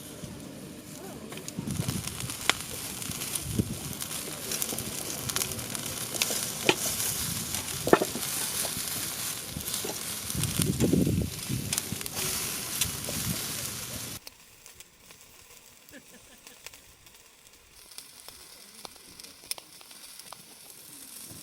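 Food frying in a hot pan: a steady sizzle with scattered sharp pops. About two-thirds of the way through it cuts off suddenly to a much quieter background with faint ticks.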